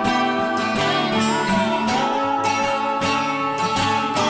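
Background music led by a strummed acoustic guitar, with a steady strumming rhythm.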